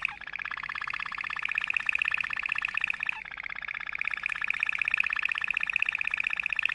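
Domestic canary singing continuous fast rolling trills of rapidly repeated notes, switching to a new trill about three seconds in.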